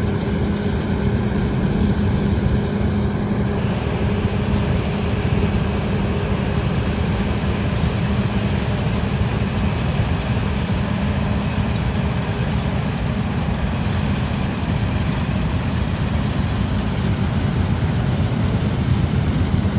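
John Deere combine running steadily while harvesting wheat, a constant loud machine drone with a steady hum.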